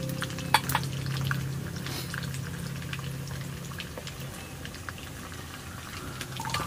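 Masala-coated lote (Bombay duck) fish frying in hot oil: a steady sizzle with scattered crackles and pops. A low steady hum runs underneath and stops about four seconds in.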